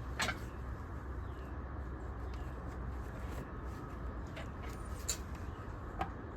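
A few sharp clicks and taps of hand tools during work on the car, over a steady low hum.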